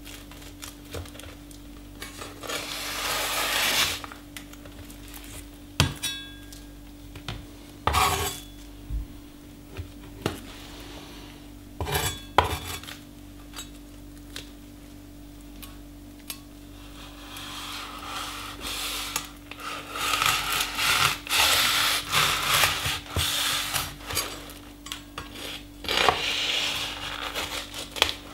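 Large Almazan cleaver-style kitchen knife cutting through a pack of cigarettes on a wooden cutting board: a handful of sharp knocks of the blade against the board in the first half. It then moves to a long run of quick rasping slicing strokes through the paper and foil.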